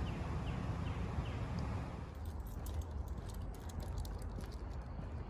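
Low rumble of wind on the microphone, with short high bird chirps repeating about twice a second at the start. From about two seconds in, light irregular metallic clicking and jingling.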